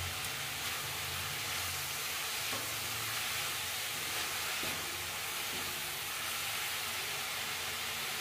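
Shredded cabbage, carrot, capsicum and spring onion sizzling in a metal kadhai over high heat, left uncovered so their water cooks off, with a steady frying hiss. A spatula stirs and tosses the vegetables, adding a few faint scrapes.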